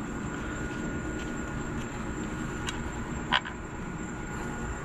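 Steady low background rumble with two faint clicks and one sharper click about three and a half seconds in, as small parts are handled on an outboard lower unit's water pump housing.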